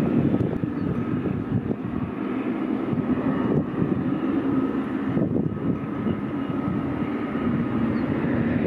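Boeing 777-300's twin turbofan engines running at taxi power as the airliner rolls past: a steady rumble with a faint, even whine above it.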